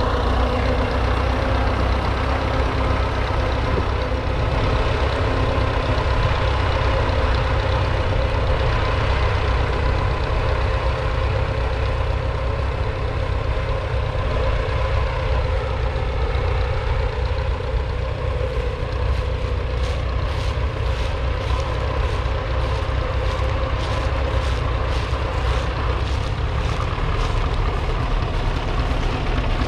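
Fordson Model N's 4.4-litre four-cylinder petrol/TVO engine running steadily under load as it pulls a two-furrow trailed plough. Past the middle comes a run of faint regular ticks.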